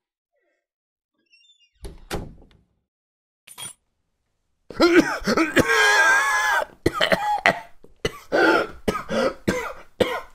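A man groaning and coughing in discomfort, which he puts down to indigestion: one long, pitch-bending groan, then a string of short coughs and grunts. Before it come a thump and a click about two seconds in.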